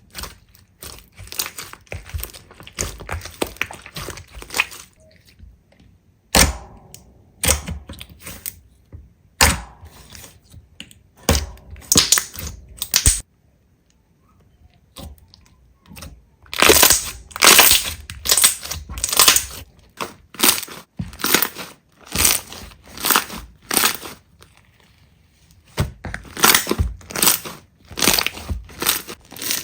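Slime being squeezed, pressed and mixed by hand, making crackling, crunching squishes in repeated bursts with a few short pauses.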